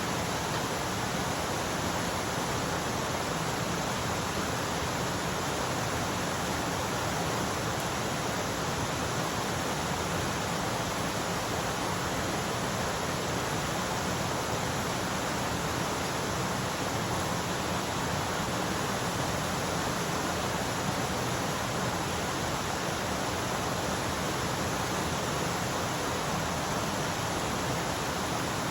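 Mountain stream rushing over rocks, a steady, even sound of flowing water.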